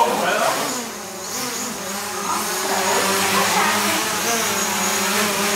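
Small folding quadcopter drone hovering close by, its propellers giving a steady buzz.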